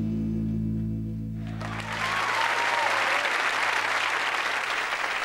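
The band's final chord rings out, with one note wavering, and stops about two seconds in as a studio audience breaks into applause. A whistle rises and falls over the clapping.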